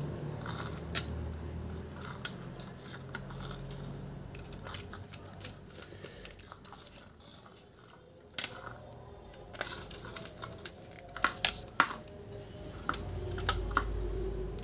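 Small screwdriver driving screws back into the plastic back cover of a round LED panel light: scattered light clicks and taps of the metal tip on screw heads and plastic housing, with sharper clicks about eight seconds in and several more in the last few seconds.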